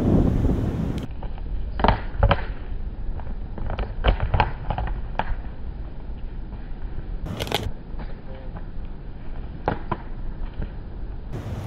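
Two American alligators thrashing against each other on the ground: a series of sharp knocks, cracks and thuds from their bodies and jaws striking, over a steady low wind rumble on the microphone. Much of it is played slowed down.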